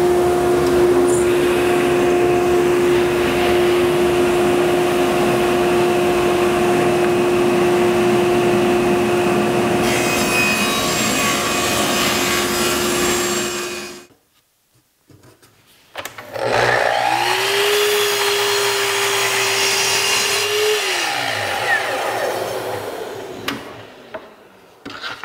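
Table saw ripping Baltic birch plywood: the blade's steady hum under the cutting noise, which stops suddenly about 14 seconds in. After a short near-quiet gap, a sliding miter saw spins up, cuts through plywood for about four seconds, and winds down.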